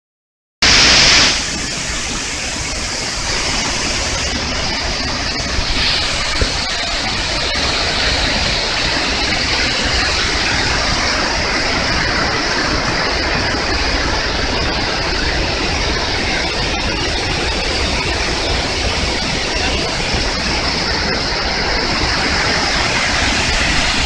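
Shiraito Falls, a broad curtain of many thin cascades falling into a pool, rushing steadily and loudly up close. It starts just after a moment of silence and is slightly louder for its first half-second.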